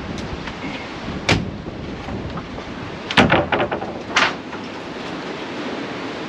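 Wooden panel knocking and clattering onto wooden deck boards, over steady wind noise on the microphone. There is one knock about a second in, then the loudest burst of quick knocks about three seconds in, and another knock a second later.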